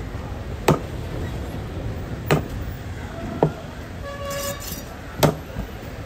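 Knife chopping through pieces of parrotfish flesh onto a thick wooden cutting block: four sharp, unevenly spaced knocks of the blade hitting the wood.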